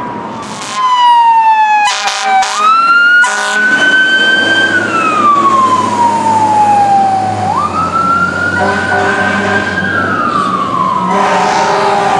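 1999 Pierce Dash fire engine responding with its siren wailing: each cycle rises quickly and falls slowly, over and over. Several short air-horn blasts sound in the first few seconds and again near the end, over the low rumble of the truck's engine.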